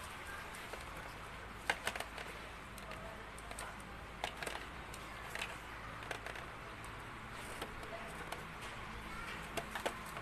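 Scattered small clicks and taps from a blender's universal motor being handled as its carbon brushes and armature are fitted back in, over a steady low background hum.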